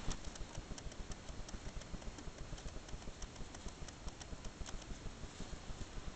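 Netherland dwarf rabbits chewing and rustling hay: rapid, irregular crisp clicks, several a second, over a steady hiss.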